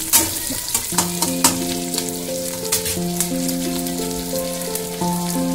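Sliced onions and green chillies sizzling and crackling in hot oil in a steel kadai, with sharp clicks of stirring in the first second or so. A soft background melody of held notes comes in about a second in.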